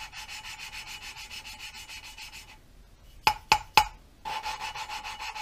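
Valve being hand-lapped into its seat in a Subaru EJ251 cylinder head: the lapping stick is spun back and forth between the palms, and the valve face grinds against the seat through lapping compound in a fast, rhythmic, gritty rub. About three seconds in, the rubbing stops for three quick sharp taps of the valve on its seat, which pull the compound back onto the seat and margin, then the rubbing resumes.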